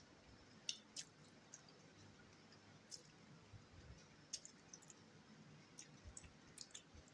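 Faint, scattered clicks and smacks of a person chewing fried rice with her mouth closed, otherwise near silence.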